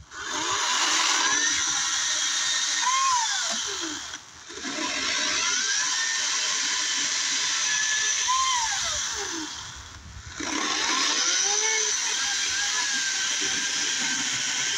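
A Ryobi 40-volt cordless electric chainsaw cutting through fallen branches in three runs. It stops briefly about four seconds in and again about ten seconds in, and its whine rises and falls in pitch as it cuts.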